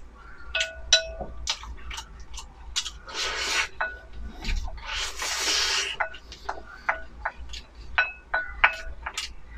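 Eating utensil repeatedly tapping and scraping a bowl, each tap clinking with a short ring, during close-miked eating of rice, with two longer stretches of noisy eating about three and five seconds in.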